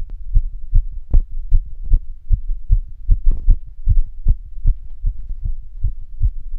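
Human heartbeat recorded up close, a quick, regular run of low thumps about two and a half a second, raised by physical activity.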